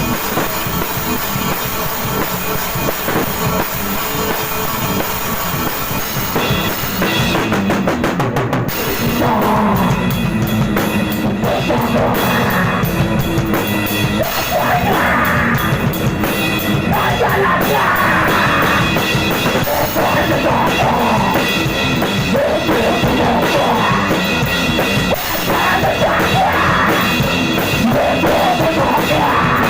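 Hardcore punk/metal band playing a song, with fast, dense drumming throughout. The music fills out and grows a little louder about nine seconds in.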